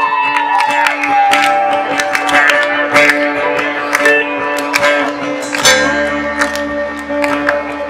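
Sitar played live, with plucked notes and sliding, bending pitches over a steady drone. A low sustained note comes in a little under six seconds in.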